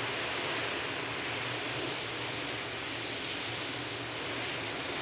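Steady rush of sea water and wind, heard aboard a ship under way, with a faint low steady hum beneath.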